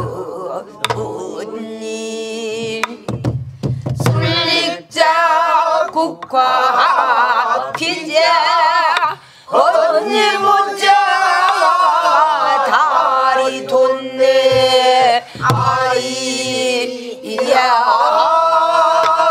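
A group of voices sings a Namdo (southern Korean) folk song in unison, in long held notes with wide, wavering vibrato. Low strokes on a buk barrel drum come now and then.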